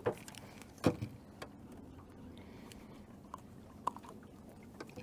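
A few faint knocks and clicks as a just-landed white crappie is handled and unhooked on the rod. The loudest knock comes about a second in, over a low steady background.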